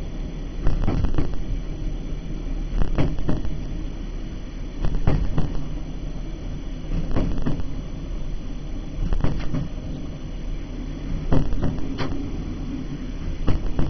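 Diesel passenger train heard from the driving cab, running with a steady low rumble. Pairs of sharp wheel clicks come about every two seconds as the wheels cross the rail joints.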